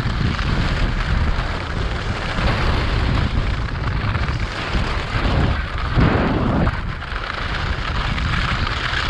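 Wind buffeting the microphone over the rasp of skis running at speed across hard, rough lake ice, a dense low rumble and hiss with a louder surge about six seconds in.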